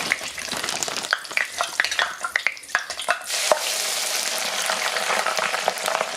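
Hot frying grease sizzling and crackling with many sharp pops, settling into a louder, steadier sizzle about halfway through.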